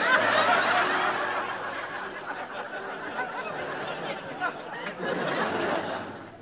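Studio audience laughing, loudest at the start, easing off, then swelling again about five seconds in before dying away near the end.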